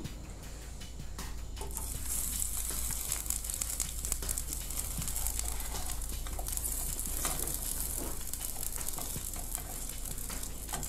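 Chopped onion sizzling in a steel frying pan on a gas-canister camping stove. The sizzle sets in about two seconds in and then holds steady, with a metal spoon stirring and scraping in the pan now and then.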